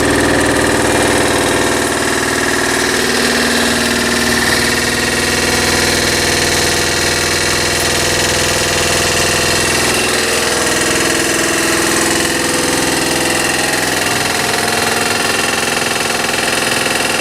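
Homemade vibrating tumbler running on a washing machine motor converted to DC, shaking a load of rusty bolts, nuts and screws to remove rust: a steady, loud motor hum and vibration with a continuous rattle.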